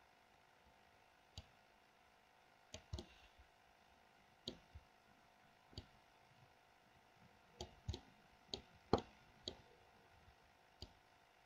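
About a dozen sharp, irregular clicks of a computer mouse and keyboard, some in quick pairs, as the 3D view is rotated and parts are moved in Blender.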